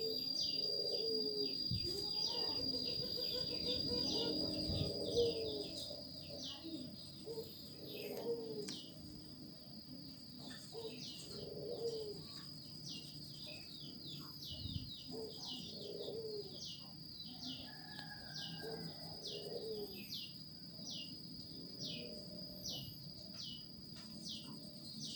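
Birds chirping: short, high, falling chirps repeated about every second over a steady high-pitched whine, with lower calls in the first half.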